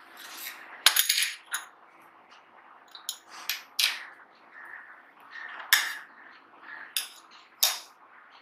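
Open 2.5-inch laptop hard drive, cover off: about eight sharp metallic clicks at irregular intervals from the read/write head actuator arm, over a faint steady hum from the spinning platter.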